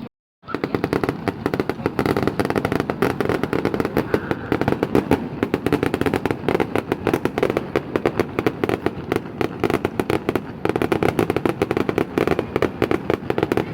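Fireworks crackling: a dense, unbroken run of rapid small pops and crackles, starting abruptly after a moment of silence.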